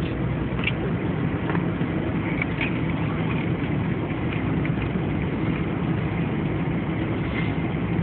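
Steady road noise inside a moving car's cabin: engine and tyres running on a snow-covered road, with a few faint ticks.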